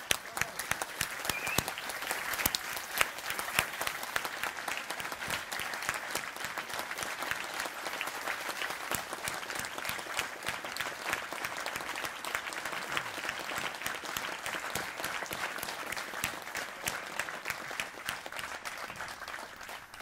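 A large audience applauding: a dense, steady round of clapping that dies away near the end.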